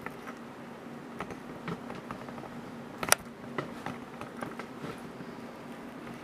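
Handling noise from a camera being repositioned: scattered light clicks and knocks, with one sharp click about three seconds in, over a steady low hum.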